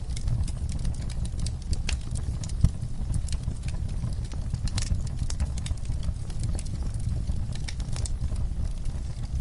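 Wood fire in a fireplace crackling, with irregular sharp pops and snaps over a low, steady rumble of the flames.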